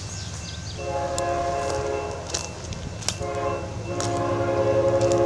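Approaching, unseen freight train's multi-chime locomotive air horn sounding a long blast, a short one, then another long blast that is still held and getting louder at the end, over a low rumble.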